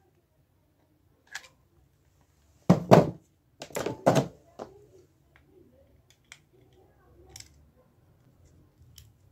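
Scattered clicks and knocks from handling a mini speaker's plastic housing and a hot glue gun, with two louder knocks a little before halfway.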